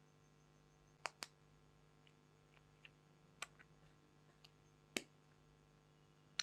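A handful of sharp, brief clicks and fainter ticks over a faint steady hum: a close pair about a second in, then single clicks at intervals of a second or two.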